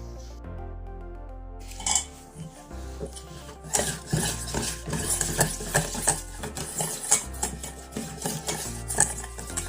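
A spoon or whisk stirring a chocolate mixture in a mixing bowl, with quick irregular clinks and scrapes against the bowl that get busier about four seconds in. Background music with a steady bass line runs underneath.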